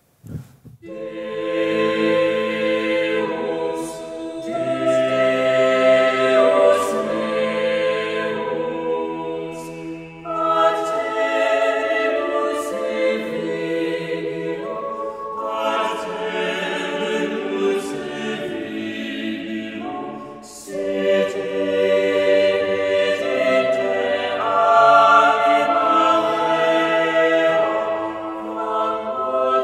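A cappella choir singing sustained chords in a church, with brief breaks between phrases. It is played back from a multichannel 3D microphone recording downmixed to two channels.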